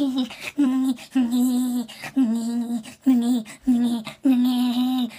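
A boy's exaggerated, deliberately annoying fake laugh: a string of drawn-out voiced syllables held on one steady pitch, about two a second.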